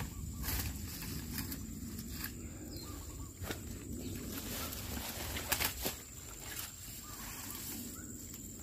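Scattered crackles and rustles of grass and leaves being pushed aside and handled close by, with a few faint bird chirps and a thin steady high whine behind.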